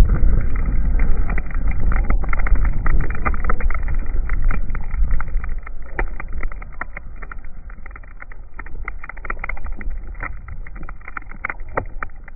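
Turbine engine of a BVM scale-model F-18 jet running at high power, its exhaust blast buffeting the microphone as a heavy low rumble, with many sharp clicks of blown debris striking the camera. The noise fades over the second half as the jet moves away.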